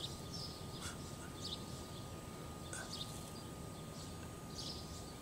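Faint birds chirping outdoors: a handful of short, high calls scattered over a steady low background noise.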